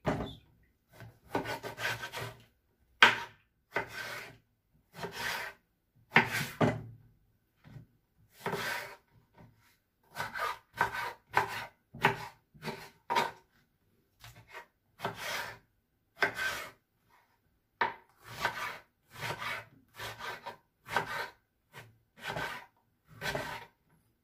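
Kitchen knife slicing an eggplant into chunks on a wooden cutting board: a series of scraping cutting strokes, about one or two a second, with short pauses between them.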